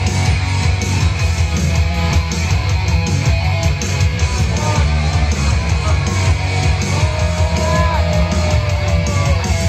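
Loud guitar-driven rock music with a heavy bass, playing continuously, with a held note that bends near the end.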